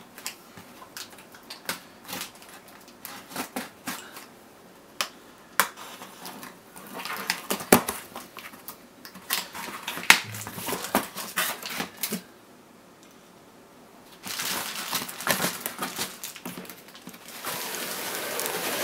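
A boxed collectible figure's cardboard packaging being handled: scattered sharp taps and clicks, then, after a short pause, stretches of rustling and scraping.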